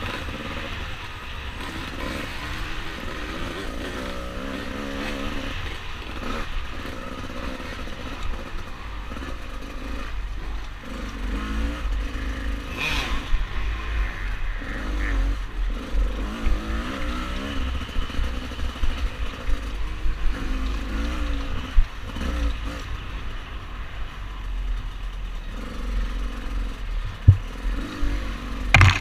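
Dirt bike engine being ridden on a rough trail, its pitch rising and falling as the throttle opens and closes, over a heavy low rumble, with rattling from the bike and a few sharp knocks near the end.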